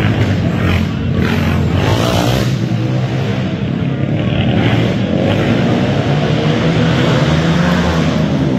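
450-class four-stroke racing quad engines running hard, their pitch rising and falling as the riders throttle up and back off through the turns.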